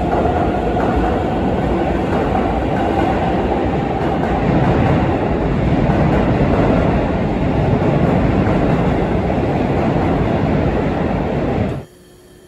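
A Keisei commuter train running on the far track of the underground station: a steady, loud rumble with wheels clattering over the rail joints, swelling in the middle. The sound cuts off suddenly near the end.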